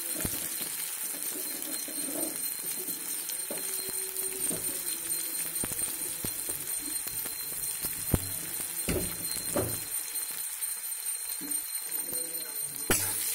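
Metal spatula scraping and knocking against an iron wok as sliced onions are stirred while they fry, with a few sharper clanks about eight to nine seconds in and again near the end. A faint steady high tone sits underneath.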